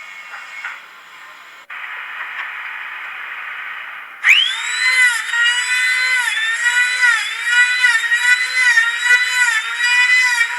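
Steady mechanical hiss, then about four seconds in a machine motor starts with a high whine, its pitch dipping briefly about twice a second as if loaded by each piece.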